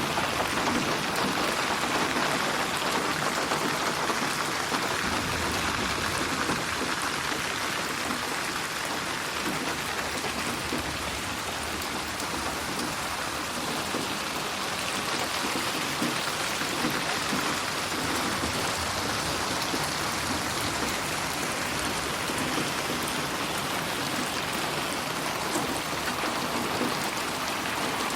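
Steady heavy rain falling and pattering on surfaces, a dense even hiss of many drops.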